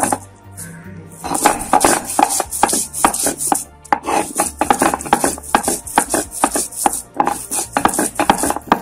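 Stone roller worked back and forth on a flat shil-pata grinding stone, crushing fried onion, garlic and green chillies into a paste, in quick repeated grinding strokes with a short pause about a second in.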